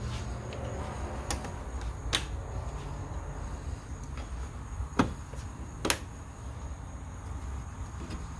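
Plastic push pins and trim clips clicking as they are pressed into a car's front bumper fascia and its mounting bracket by hand: four sharp clicks, the two loudest about a second apart past the middle.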